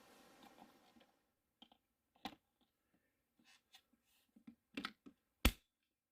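Light scattered clicks and taps of plastic parts on a cordless stick vacuum being handled, with one sharper click about five and a half seconds in. The vacuum motor is not running.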